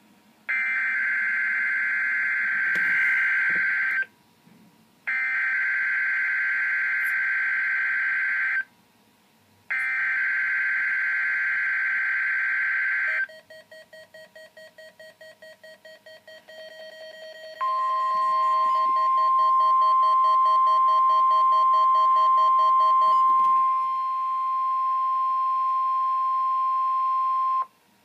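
NOAA Weather Radio weekly alarm test sounding through weather radios. First come three bursts of buzzy, warbling digital SAME header data, each about three and a half seconds long. Then fast beeping starts at about six beeps a second, and a steady 1050 Hz alert tone joins it and runs about ten seconds before cutting off.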